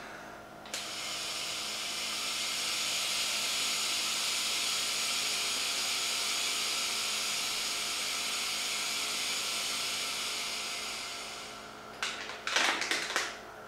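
A long, steady exhalation blown through a one-way-valve mouthpiece into a breath-sample bag, a hiss lasting about eleven seconds that starts suddenly and fades out as the lungs empty. The bag is being filled with an end-tidal sample for a hydrogen and methane breath test. Near the end come a few short clicks and rustles as the bag's clip is closed.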